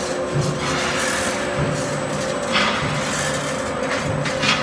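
Solar mounting bracket roll forming machine running: a steady mechanical hum with a low note that swells and fades about once a second, and metal rubbing through the rollers. There are two short, higher scrapes, about halfway and near the end.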